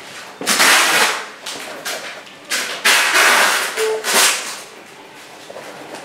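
Painting tools scraping and working thick oil paint: three loud rasping strokes in the first four and a half seconds, the middle one the longest.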